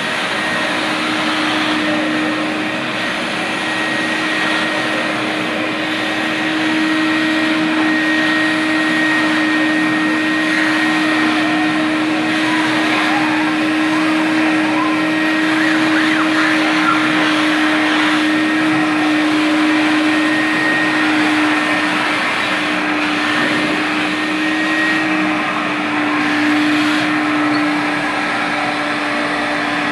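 Water-filtration vacuum cleaner running steadily: a constant motor hum with a faint high whine, its pitch wavering slightly in the second half.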